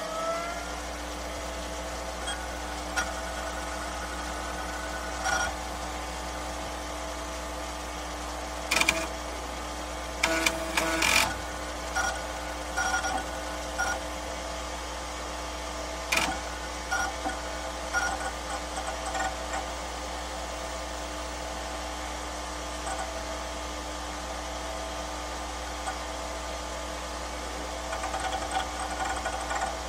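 Steady mechanical hum with several held tones, broken by scattered clicks and knocks, the loudest cluster about ten seconds in.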